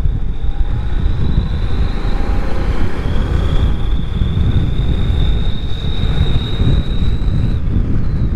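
Motorcycle riding along at speed, with wind buffeting the microphone in a heavy low rumble and a thin high whine that holds steady until near the end.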